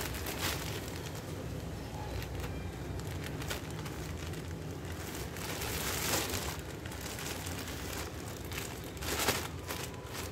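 Plastic courier mailer bag crinkling as it is handled and turned over, with a few louder rustles about six and nine seconds in.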